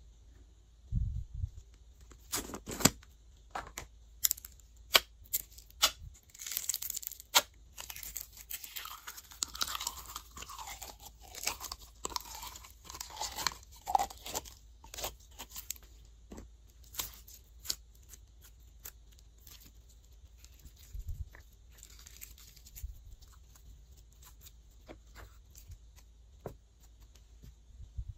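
Glittery purple clear slime being squeezed out of its round plastic tub by hand: sharp plastic clicks and crackles, with a busier stretch of squishing and crinkling in the middle, then only scattered clicks.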